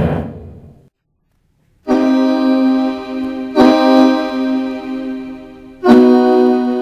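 A single loud hit at the very start that dies away within a second, then after a short silence, held electronic keyboard chords, a new chord struck about every two seconds.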